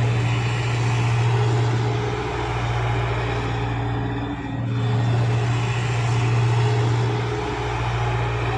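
JCB tracked excavator's diesel engine running steadily at working revs as the machine slews round, a continuous low drone that dips briefly about halfway through.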